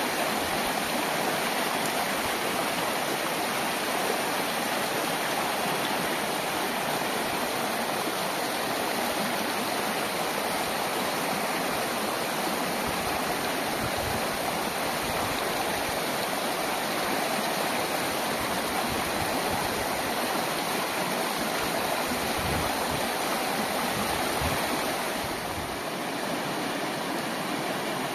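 Shallow mountain stream rushing over rock ledges and cascading into a pool, a steady even rush of water that drops slightly in level near the end.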